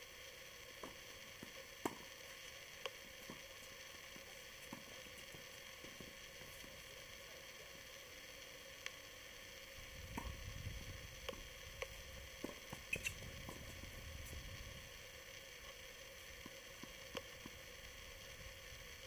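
Faint steady hiss with a faint constant hum, under scattered sharp pops that fit tennis balls being struck by rackets and bouncing on a hard court, about a second apart at first and bunched around the middle. A low rumble comes in for a few seconds partway through.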